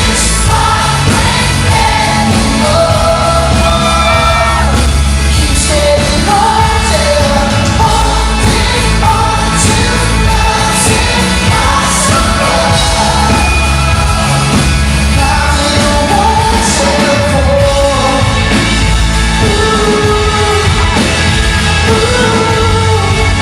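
Pop-rock band playing live, a lead voice singing the melody over a heavy bass and drums, loud and unbroken, with some shouting from the crowd.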